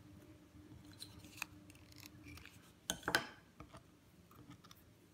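Scissors snipping: scattered light clicks and handling sounds, with a cluster of two or three sharper snips about three seconds in.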